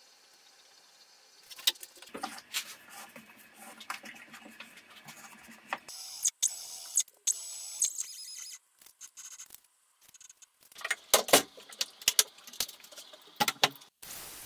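Scattered clicks, knocks and clatter of a plywood sheet being handled and set on the bed of a homemade CNC router, with a steady high hiss for about two seconds near the middle.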